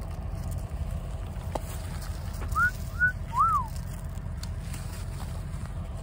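Three short whistled notes about two and a half seconds in, each rising and then falling, over a steady low rumble.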